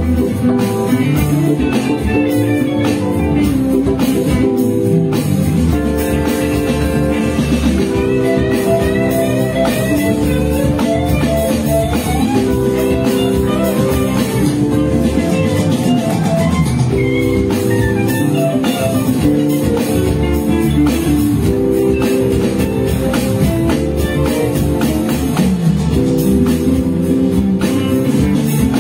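Live instrumental jazz-rock band playing, with a drummer on an electronic drum kit under a pitched melodic lead line.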